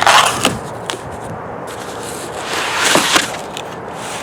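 Packaging being handled: a loud scrape at the start, a couple of light knocks, then another scraping rustle about three seconds in.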